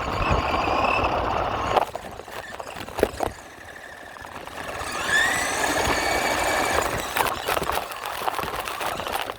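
Radio-controlled truck's motor and drivetrain whining under throttle, dropping away a couple of seconds in, then spinning up again with a rising whine about halfway through and holding, with a few sharp clicks.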